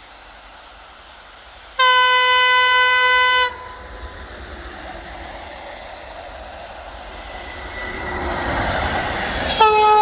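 An electric multiple unit train's Kockums Tyfon air horn gives a steady blast of about a second and a half, a couple of seconds in. The train's running noise then rises as it approaches, and the horn sounds again, slightly lower in pitch, just before the end.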